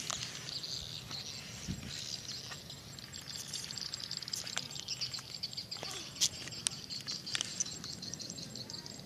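Outdoor ambience: steady high-pitched chirping, like insects or birds, with scattered sharp clicks.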